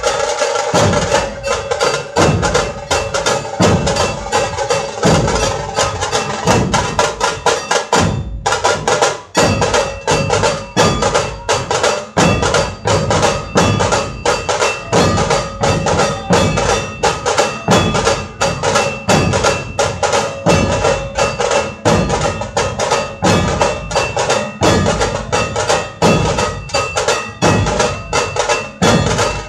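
Dhol-tasha ensemble playing: large dhol barrel drums pound a steady deep beat under the rapid crackle of tasha drums. The playing drops out briefly about eight seconds in, then carries on.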